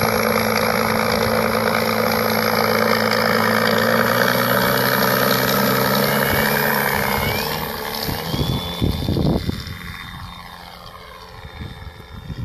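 Radio-controlled 1700 mm P-51 Mustang model's Benedini sound module playing a steady piston-engine rumble through its onboard speaker. About six seconds in, the propeller's whine rises as the throttle opens. The sound then fades as the model rolls away and climbs, with a few wind buffets on the microphone.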